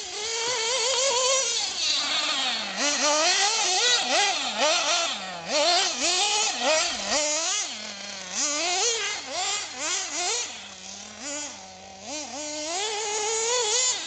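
Nitro engine of a Hyper 7 1/8-scale RC buggy revving hard, its high whine rising and falling about once a second as the throttle is worked.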